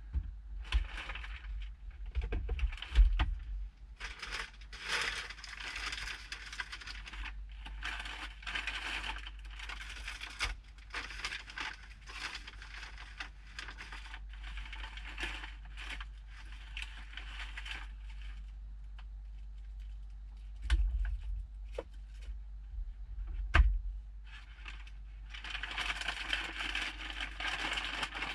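Irregular rustling and crackling with scattered clicks over a steady low rumble, and a few louder thumps about three seconds in and again near the end.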